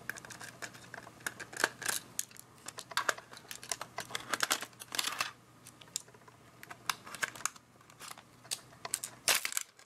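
Irregular small clicks, taps and scrapes of a precision screwdriver working screws out of a Sony Mavica MVC-FD83 camera's plastic and metal body, and of fingers handling its parts.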